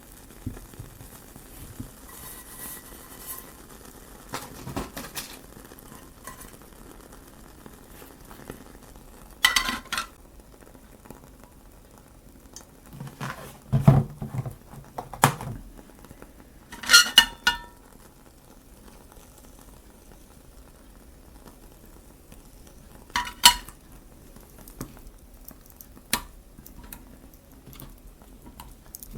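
Potatoes frying quietly in a small metal frying pan, with a handful of separate clinks, knocks and scrapes of a utensil against the pan spread through.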